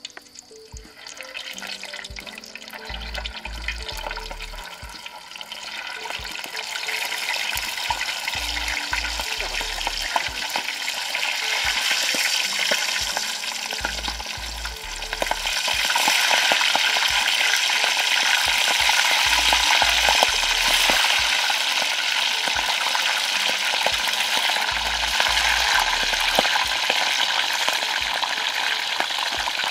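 Eel pieces deep-frying in hot oil in a steel wok, with a steady sizzle full of small crackles. It grows louder about halfway through. A wooden spatula stirs the oil.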